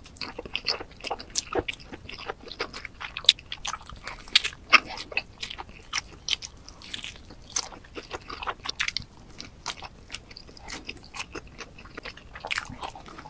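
Close-miked eating of cheese pizza: bites into the crust and chewing, with many irregular small crisp crunches, several a second, the loudest a few seconds in.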